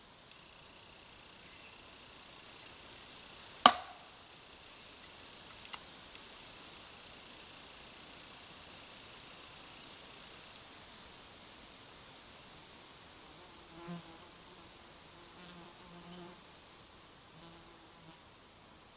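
Insects buzzing around the microphone, with one sharp, loud click a little under four seconds in. Near the end come a few faint, short pitched calls.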